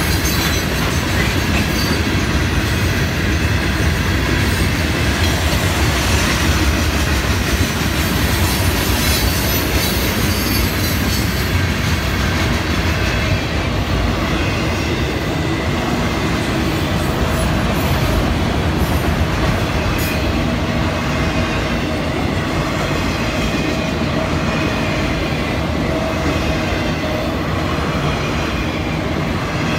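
Florida East Coast Railway freight train rolling past at close range: the steady rumble and clatter of steel wheels on the rails as hopper cars and then autorack cars go by.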